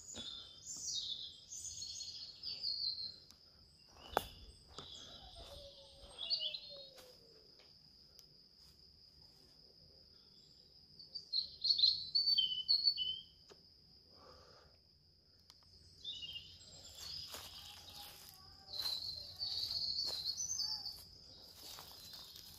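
Small birds chirping and twittering in several short spells over a steady high-pitched insect trill, with a few scattered knocks.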